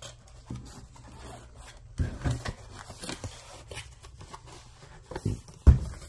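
Handling of the small cardboard box holding a spare Cooler Master fan: quiet scrapes and rustles, a knock about two seconds in and a louder thump near the end.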